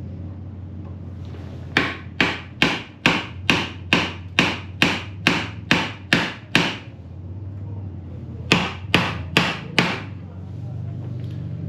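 Hammer blows on a rusted, seized baffle in an old Yamaha RD400 exhaust pipe. About a dozen quick, ringing strikes come in a steady run, then after a short pause four more.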